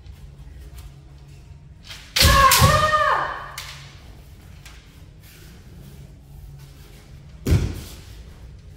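Kendo fighters' kiai: two loud, drawn-out yells that overlap and fall in pitch, starting with sharp hits about two seconds in. Near the end there is one sharp thud.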